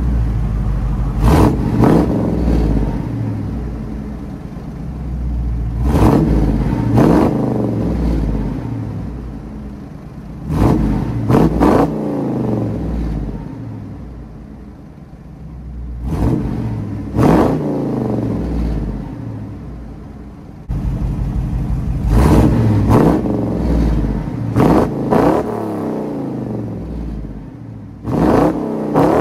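1999 Dodge Dakota's 5.2-litre V8 with shorty headers, 2.5-inch true dual exhaust with H-pipe and twin Borla Pro XS mufflers exiting at the bedside, revved in short blips, often two or three at a time, every few seconds. It drops back to idle between the blips.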